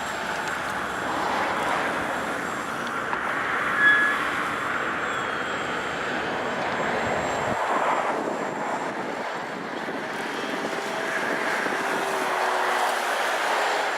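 Radio-controlled model airplane in flight: a steady whirring hiss of motor and propeller, with a brief high-pitched tone about four seconds in.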